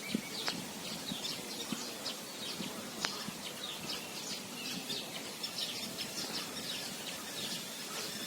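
Small birds chirping and singing continuously, many short high calls overlapping, with a couple of faint clicks.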